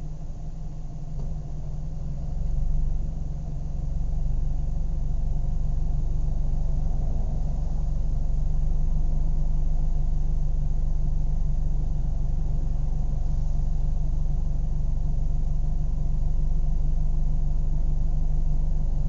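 Car engine idling steadily with a low hum, growing louder about three seconds in and then holding even.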